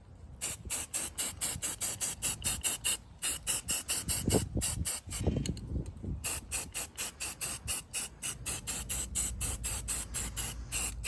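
Aerosol can of spray primer spraying in rapid short hissing pulses, about four or five a second, with brief pauses about three seconds in and again near six.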